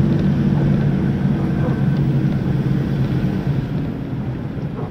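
Vehicle engine running steadily under load, heard from inside the cabin while driving a rough dirt track, with a few light knocks from the body; the engine eases off slightly near the end.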